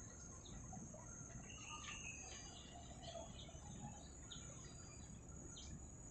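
Faint outdoor ambience: scattered short bird chirps over a steady high-pitched insect drone and a low background rumble.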